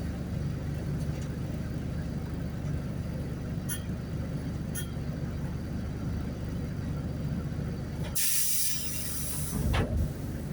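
Diesel engine of a Mercedes-Benz OF-1519 city bus running steadily with a low drone. About eight seconds in comes a loud, sharp hiss of released compressed air lasting about a second, from the bus's air system.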